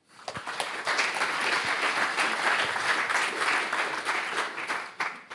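Audience applauding, building up over the first second and dying away near the end.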